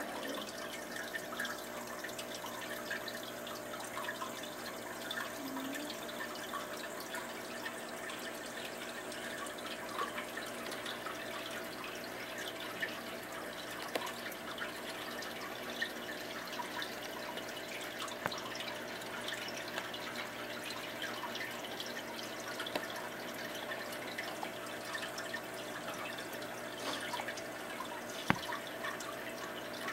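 Aquarium water trickling and dripping steadily with many small splashes, as from the tank's filter return, over a faint steady hum. One sharp click near the end.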